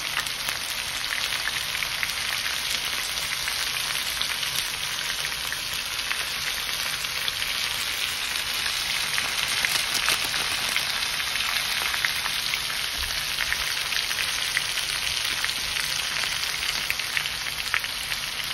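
Cubed potatoes frying in oil in a wok: a steady sizzle with scattered small crackles.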